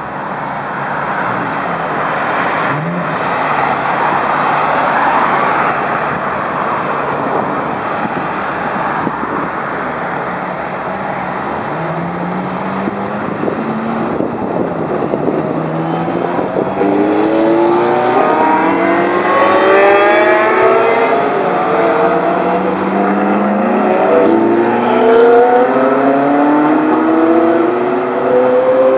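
Sports car engines, Ferraris among them, driving past with a wash of road noise; from about halfway, several cars accelerate hard one after another, their engine pitch rising again and again as they rev up through the gears, louder toward the end.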